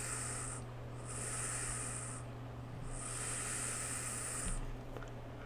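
Three breathy hisses of air drawn through a Golden Greek Penelope rebuildable atomizer, each lasting a second or more with short pauses between, as someone pulls on it to vape.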